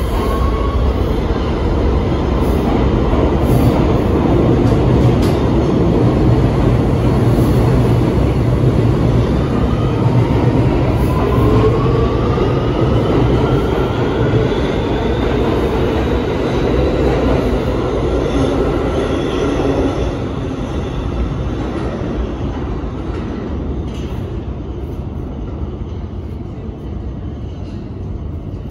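Kawasaki R211T subway train pulling out of the station and running past the platform, with an electric whine that rises in pitch as it gathers speed. Its rumble fades away over the last several seconds as it leaves.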